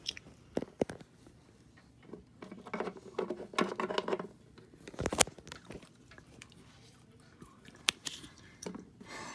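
Close handling noise of small toy figures and a small wooden box: light rustling and scraping with scattered taps and clicks, and one sharper knock about five seconds in.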